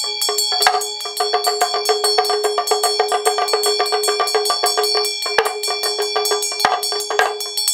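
Tibetan Buddhist ritual hand bell (drilbu) ringing continuously with a steady, bright tone, over a fast, even rattle of about a dozen strokes a second from a damaru hand drum shaken with it; a few louder knocks stand out, about a second in and near the end.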